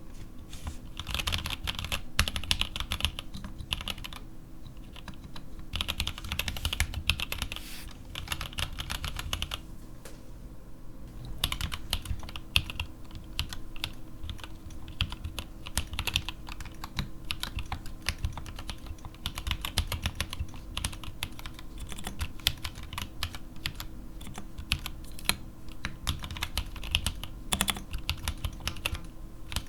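Mechanical keyboard with stock, unlubricated Gateron Black linear switches and SA-profile ABS keycaps, typed on continuously in fast, dense runs of keystrokes, with brief pauses about four and ten seconds in.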